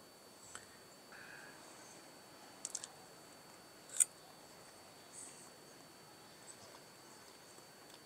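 A few short clicks of a metal fork as a bite of fried potato is taken: a quick cluster of three clicks near the middle and one sharper click about four seconds in, over faint room tone.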